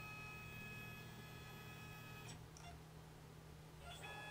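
Faint steady electrical whine and low hum from the CNC lathe's axis drives while the turret is jogged out along X and Z. The whine cuts out with a soft click a little past two seconds in and comes back with another click near the end.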